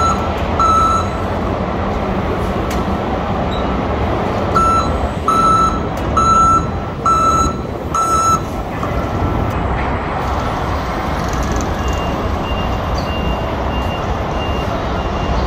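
Warning beeper of a Toyota electric forklift sounding a run of short repeated beeps over steady machinery noise as it manoeuvres a pallet. The beeps come at the very start and again from about four and a half to eight seconds in, and a fainter, higher intermittent beep follows near the end.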